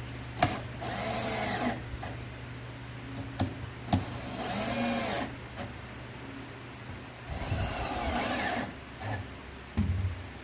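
Electric drill driving screws into solid wood: three runs of about a second each, the motor's pitch wavering, with a few sharp knocks in between.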